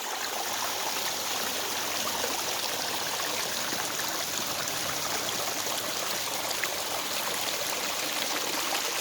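Pump-fed backyard pond waterfall, water splashing and trickling steadily over rocks.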